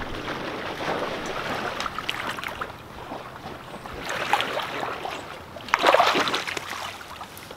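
Water sloshing and splashing as hunters wade through flooded timber, louder about six seconds in as one moves close by.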